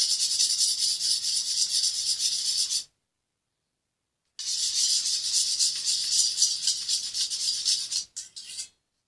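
Rapid, crackly, squishy hiss of detergent-and-glue slime being stirred or kneaded. It comes in two stretches separated by about a second and a half of dead silence, and ends with a few short squelches.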